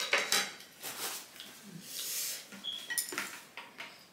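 Chopsticks clicking against a dish, with close-up eating sounds, during a mukbang meal of noodles and fried chicken. There is a string of sharp clicks, the loudest near the start and again about three seconds in.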